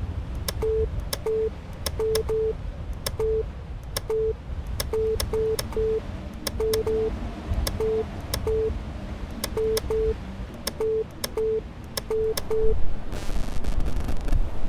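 Push buttons on an electronic send/receive panel being pressed, with sharp clicks and about twenty short beeps at one steady mid pitch, coming at an uneven pace, over a low rumble. A burst of hiss follows near the end.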